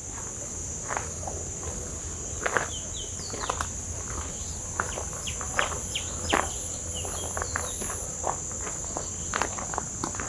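Footsteps on a gravel path, one irregular step after another, over a steady high-pitched insect drone, with a few short bird chirps.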